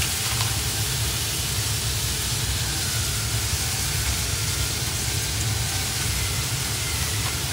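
Steady hissing sizzle as mop sauce is brushed onto hot pork butts on a running pellet grill, over a low, steady rumble.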